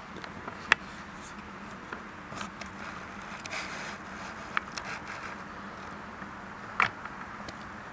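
Handling noise close to the microphone: scattered scrapes and rustles with three sharp clicks, the loudest about a second in and another near the end, over a steady low hum.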